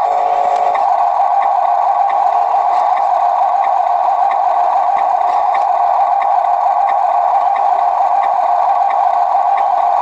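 Electric drive motor and gearbox of a toy RC dump truck running with a steady whine, with a light tick about every 0.7 seconds.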